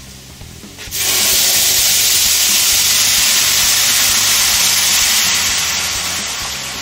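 Fish stock poured from a pot into a hot paella pan of fried noodles, setting off a loud, steady hiss and sizzle about a second in that eases slightly toward the end.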